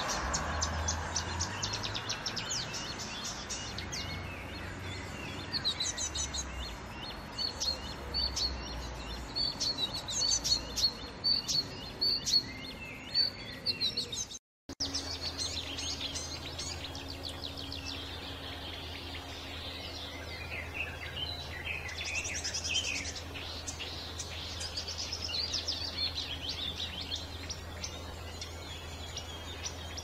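Small warblers singing, two recordings one after the other. The first is a fast stream of rapid repeated chattering notes and whistles that cuts off abruptly about halfway. The second is another bird's varied, scratchy warbling over a steady low hum.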